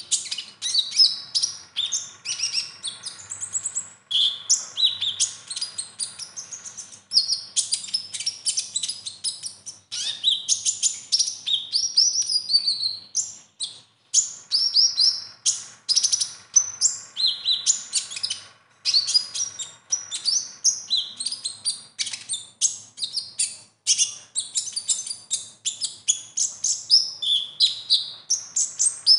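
Male Van Hasselt's sunbird (kolibri ninja) singing a long, fast, high-pitched chattering song of rapid chirps and trills, with a few short pauses. The song is packed with other birds' phrases, the 'isian' that bird-contest judges look for.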